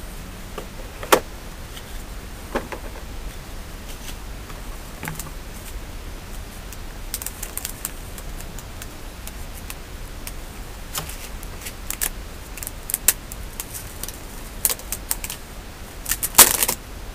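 Scattered sharp plastic clicks and taps of a Kindle e-reader and its box being handled, with a quick run of clicks near the end.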